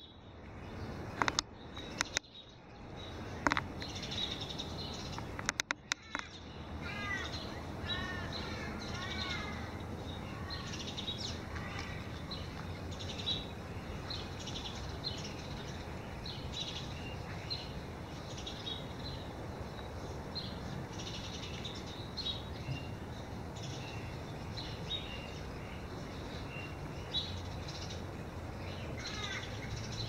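Several birds calling: short chirps throughout and a run of repeated curved whistled notes a few seconds in. A handful of sharp knocks stand out in the first six seconds.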